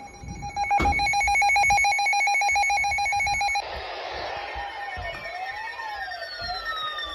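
Emergency Alert System alert tones received over a radio, announcing a severe thunderstorm warning. A loud, buzzy, fast-pulsing data-like tone cuts off about halfway. A quieter tone follows, wavering up and down, with whistling pitches that slowly fall.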